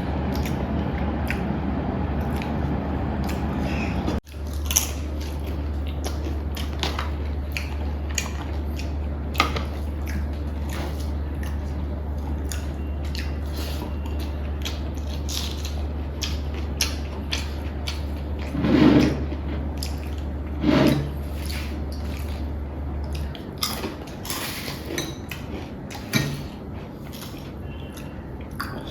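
Close-up eating sounds: scattered small clicks of food and utensils and chewing, over a steady low hum that stops near the end. Two louder short sounds come about two seconds apart in the later part.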